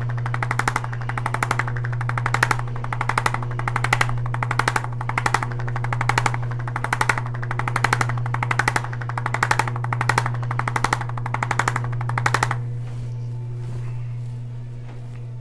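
Electric percussion massager hammering rapidly on tight lower-back muscles, its fast taps swelling and easing in pulses a little under a second apart as it is pressed and moved along the back. It stops abruptly about twelve seconds in.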